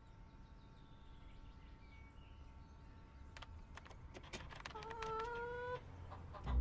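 A chicken making faint clucks and clicks, then a short drawn-out call that rises slightly in pitch about five seconds in.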